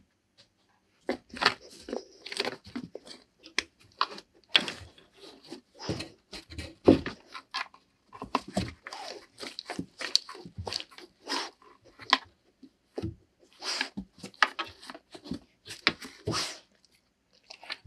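A dog chewing and crunching at something, a run of irregular crackling snaps that starts about a second in.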